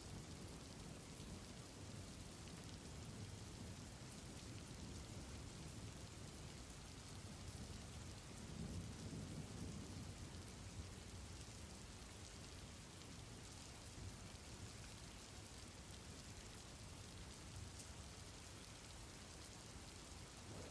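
Faint, steady rain ambience, with a low rumble swelling about nine seconds in.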